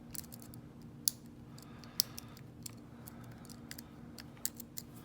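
Lock pick and tension wrench working the pin tumblers of a Lockwood 30mm laminated padlock: small irregular metal clicks and ticks as pins are lifted and set, with two louder clicks about one and two seconds in.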